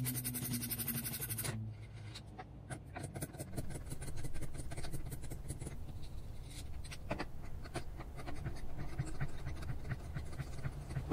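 Wrench work on small nuts of a kayak pedal-drive spine: scattered light metal clicks and scraping as the nuts are loosened.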